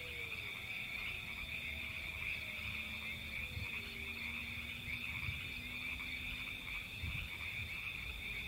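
A chorus of frogs calling continuously in a dense, steady trill, over a low rumble. Faint long tones glide slowly downward in the first few seconds.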